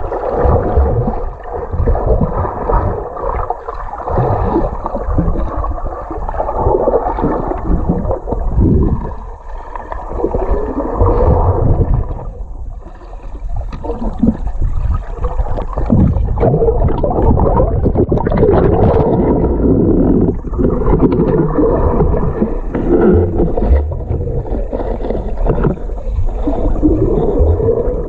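Underwater noise picked up through an action camera's waterproof housing while diving: loud, muffled rumbling and gurgling water that swells and fades unevenly, dropping away briefly about halfway through.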